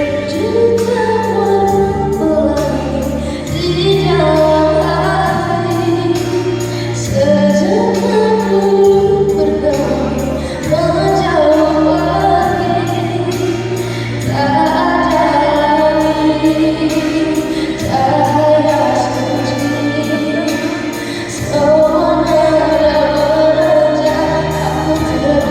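A female voice singing a melody in phrases over backing music with a bass line and a steady beat.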